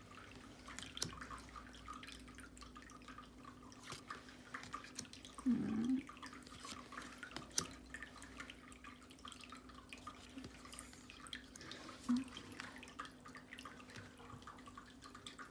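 Tarot cards being handled during a flip-through: soft, irregular clicks and taps of cardstock being shifted and laid down. A brief low hummed voice sound comes about five and a half seconds in, with a smaller one near twelve seconds.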